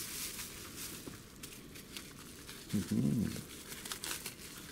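Bubble wrap crinkling and rustling in irregular bits as small parts are unwrapped by hand, with a brief low hum about three seconds in.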